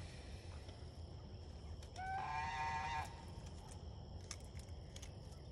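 A domestic goose gives one long, nasal honk about two seconds in, lasting about a second.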